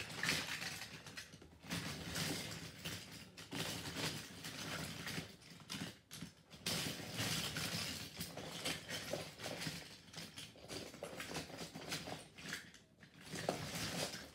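Rustling and light clattering of objects being handled, with brief pauses about six and thirteen seconds in.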